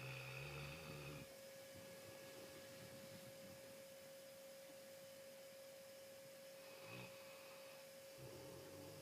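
Faint snoring: a low, buzzy snore lasting about a second at the start, a short one about seven seconds in, and another near the end. A steady high-pitched hum runs underneath.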